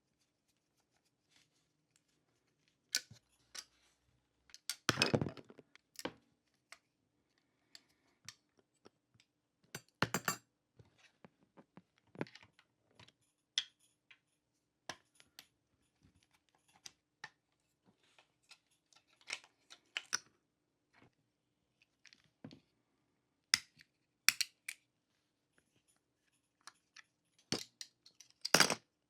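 Irregular small clicks, taps and knocks of parts and tools being handled while working on a 1:18 scale diecast model car. The clicks come singly or in short clusters with quiet gaps between them, and a few are louder knocks.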